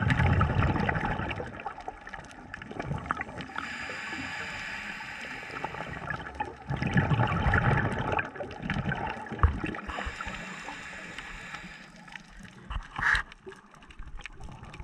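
Underwater recording: gurgling bubbles and water movement in bursts, loudest in the first two seconds and again about seven seconds in, over a steady hiss, with a few faint clicks.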